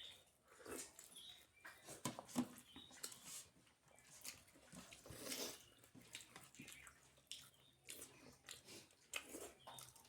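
Faint close-up eating sounds: chewing and wet mouth smacks with irregular small clicks as soft flatbread and curry are eaten by hand.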